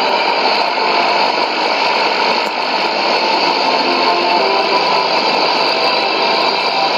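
Shortwave AM broadcast on 6145 kHz received on a Sony ICF-2001D: a steady hiss of static and noise, cut off above and below like AM radio audio, nearly swamps the station's music, which stays faintly audible underneath.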